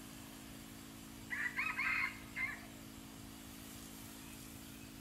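A rooster crows once, about a second and a half in, a call of a little over a second, over a steady hiss of water spraying from a garden hose.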